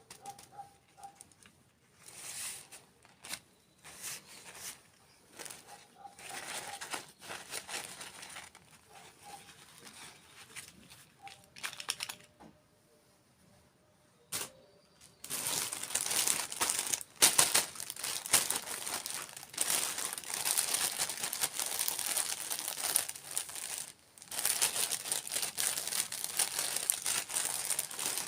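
Plastic wrapping crinkling and tearing as dessert packages are opened: scattered short rustles and clicks at first, then, about halfway through, dense continuous crinkling that breaks off briefly near the end.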